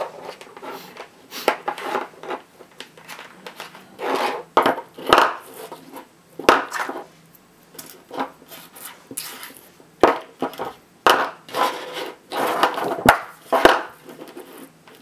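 Loose LG 18650 lithium-ion cells clacking and rubbing on a desk as they are handled and lined up, with a series of sharp clicks and knocks as multimeter test probes are put to them to check each cell's voltage.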